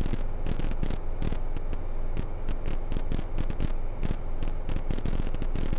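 Light aircraft cabin noise picked up by a microphone stuffed inside a headset earcup: a low, rumbly, farty drone, almost like a top-fuel dragster, with irregular crackles throughout. The rumble is an artifact of the in-earcup recording and was not heard in the headset itself.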